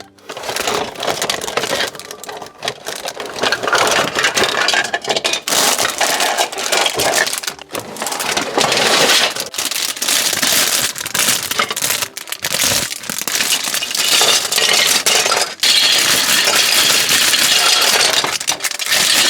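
Lego Duplo plastic bricks and pieces clattering and rattling against one another as they are emptied out of the set's packaging and handled, a dense, continuous run of clicks.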